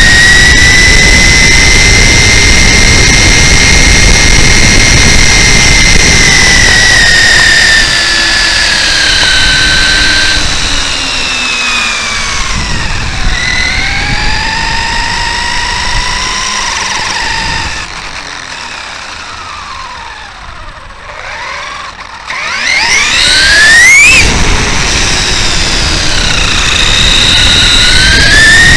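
Traxxas E-Revo RC truck's Hobbywing 2200kv brushless motor and gear drive whining, its pitch rising and falling with speed, over a rumble of tyres on the asphalt, heard from a camera on the chassis. Past the middle the whine fades for a few seconds as the truck slows, then climbs sharply as it accelerates again.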